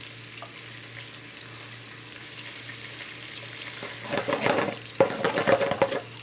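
Garlic-ginger paste frying in melted butter and oil in a karahi, a steady sizzle. From about four seconds in, it is stirred around the pan, with loud, uneven scraping.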